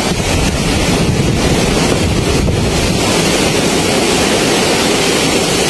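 Loud, steady rushing of wind and surf, with wind buffeting the microphone.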